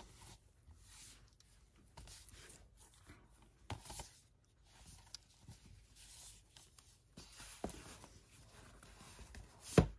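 Handling of Blu-ray cases in slipcovers as they are taken out of a box set: soft rustling of card and plastic with a few light knocks, and a sharper click just before the end.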